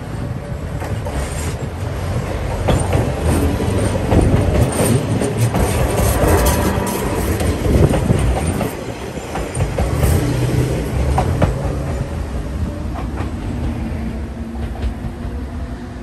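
Enoden (Enoshima Electric Railway) electric train passing close by, its wheels clacking over the rail joints with many sharp clicks. The sound builds as it approaches, is loudest a few seconds in as the cars go past, then fades slowly as it moves away.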